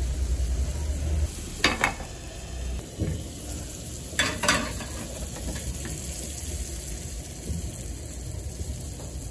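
Menemen of tomatoes, peppers and eggs sizzling steadily in a small aluminium pan over a gas burner. Metal clinks from pans being handled come twice, about a second and a half in and again around four seconds in.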